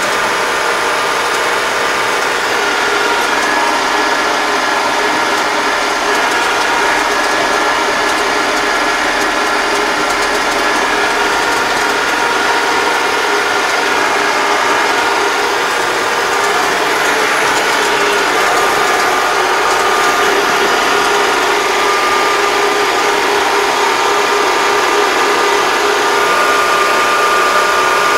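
Yanmar tractor's diesel engine and drivetrain running steadily at road speed, heard from inside the cab, with steady whining tones over the engine noise.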